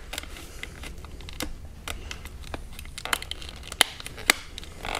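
Scattered sharp plastic clicks and creaks as a thin screwdriver pries a stuck Hyundai Sonata steering-wheel switch panel out of its trim, the panel half out and still held by its clips. The two loudest clicks come about half a second apart near the end.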